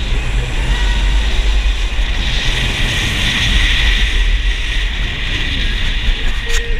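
California Screamin' roller coaster train running along its steel track: a loud, steady rumble with wind rush across the rider's head-mounted microphone, and a single sharp clank near the end.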